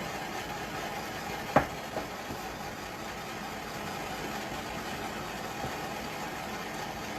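Steady mechanical hum, with one sharp knock about a second and a half in and a softer knock just after.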